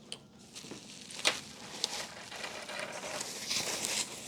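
Light handling noises: a few sharp clicks and some soft rustling as an electronic device is unpacked and handled.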